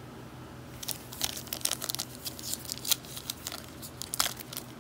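Cellophane wrapper of a trading-card cello pack crinkling and crackling as fingers pick at it to tear it open, starting about a second in with many sharp, irregular crackles.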